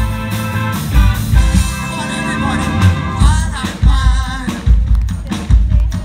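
Live band playing amplified music with drum kit, electric guitar and keyboard, a voice singing over a steady beat.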